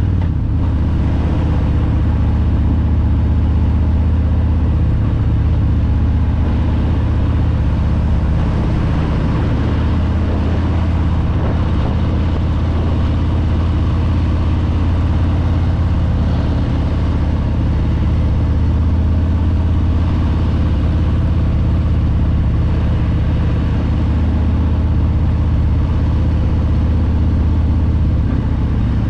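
2021 Harley-Davidson Breakout's Milwaukee-Eight 114 V-twin engine running steadily while the motorcycle is ridden, a deep, even exhaust note with little change in engine speed.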